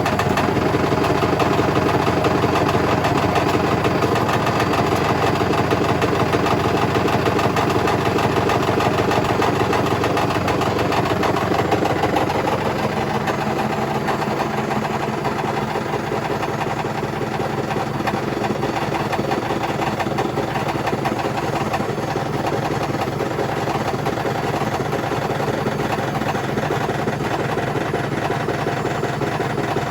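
Hotpoint BHWMXL145 washing machine on its high-speed spin, the drum making a loud, steady mechanical noise because two arms of its drum spider have snapped. The noise eases slightly about twelve seconds in.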